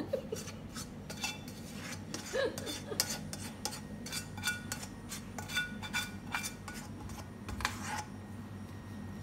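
A spatula scraping and knocking against a frying pan as cooked beef is scraped out into an electric pressure cooker's inner pot: a run of irregular clinks and scrapes.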